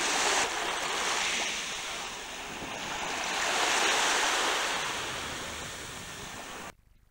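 Small sea waves washing, with some wind on the microphone; the wash swells twice and cuts off suddenly near the end.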